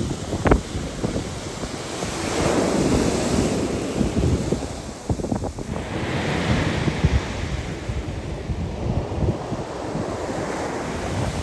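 Surf washing onto a shore in two swells, with gusty wind buffeting the microphone.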